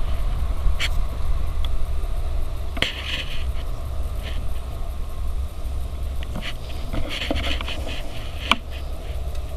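Strong wind buffeting the microphone as a steady low rumble, with scattered faint rustles and clicks and one sharper click near the end.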